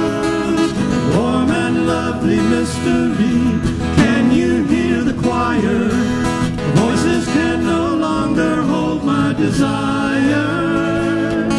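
Live acoustic band playing the song's instrumental break: strummed acoustic guitars over bass, with a melody line whose notes bend and slide up and down.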